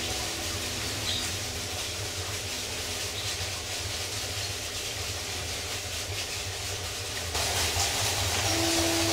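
A steady rushing hiss with faint, held musical notes beneath it, growing louder about seven seconds in as a new sustained note enters.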